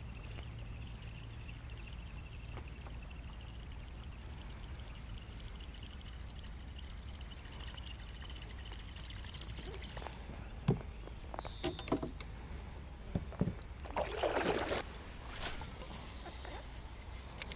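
Water sounds around a kayak. Over a steady low background there are scattered knocks and short splashes in the second half, the biggest splash about fourteen seconds in.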